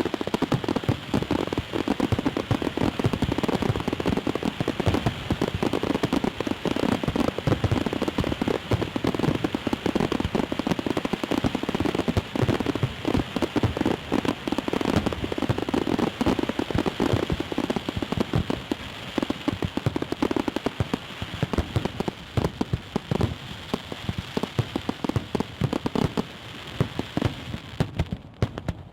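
Fireworks crackling: a dense, unbroken run of small sharp pops, so many that they merge into one continuous patter.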